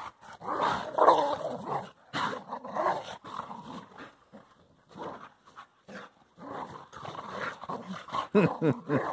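Two boxer-type dogs play-fighting, growling in short bursts, with a quieter few seconds midway before the growls pick up again near the end.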